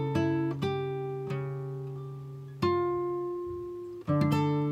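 Background music on acoustic guitar: plucked notes and chords, each ringing out and fading before the next is struck.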